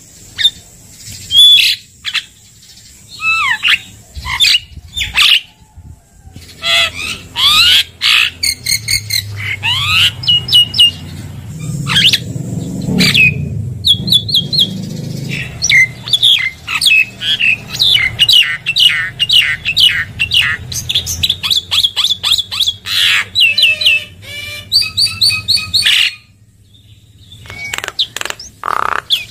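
Javan myna (jalak kebo) singing: loud whistles and sweeping notes, then from about the middle a long, fast run of repeated chattering notes, breaking off shortly before the end.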